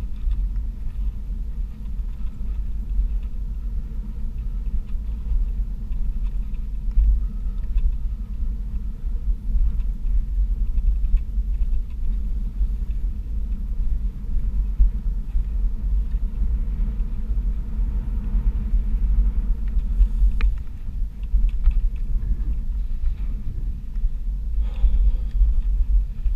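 Steady low rumble of a OneWheel XR+ electric board rolling over a bumpy dirt double-track through dry grass.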